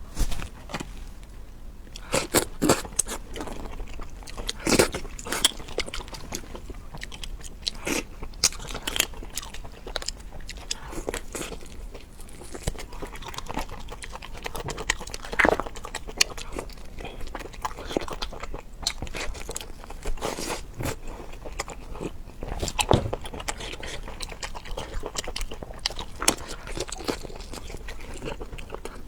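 A person biting and chewing crunchy food close to the microphone: irregular sharp crunches throughout, a few louder bites standing out.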